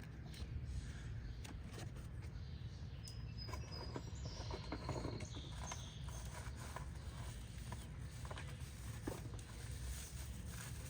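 Faint scattered clicks and rustling from hands handling plastic ignition coil connector parts, with a couple of thin high squeaks about four seconds in, over a low steady rumble.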